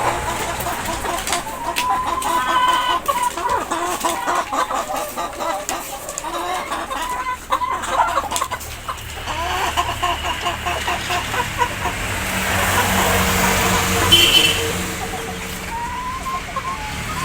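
Chickens clucking over and over in short pitched calls. A steady hum joins in from about twelve to fifteen seconds in.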